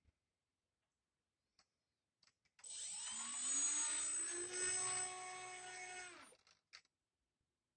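Electric motor and red propeller of a Calypso RC glider spinning up with a rising whine about two and a half seconds in, running steadily for about three and a half seconds, then winding down and stopping.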